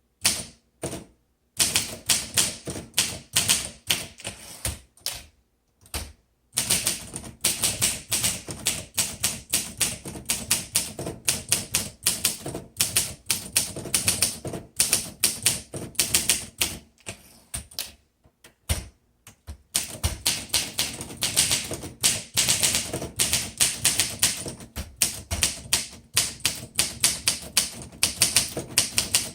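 1957 Olympia SM3 manual typewriter being typed on: a quick run of sharp typebar strikes, broken by a few short pauses.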